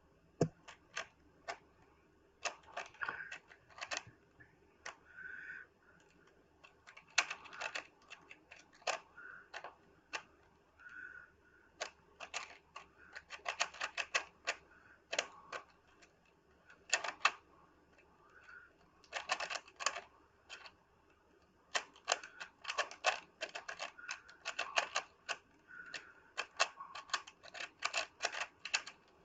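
Rubik's Cube being speed-solved: its plastic layers clicking and clacking in rapid flurries of turns, broken by short pauses between bursts.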